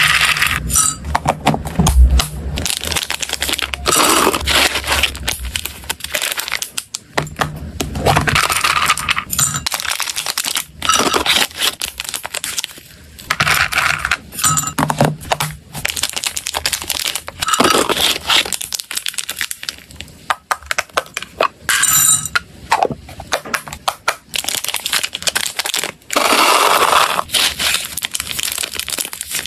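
Dry hamster food scooped with a spoon and poured into a glass jug: small hard cereal rings, and later pellet sticks, rattle and clink against the glass in repeated pours. A plastic food pouch crinkles near the end.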